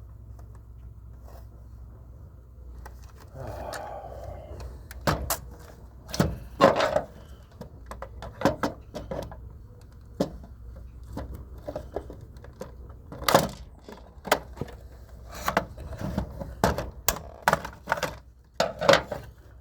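Plastic housing parts of an iRobot robot vacuum being handled and pried apart with hand tools: a short scrape a few seconds in, then a long, irregular run of sharp clicks and knocks.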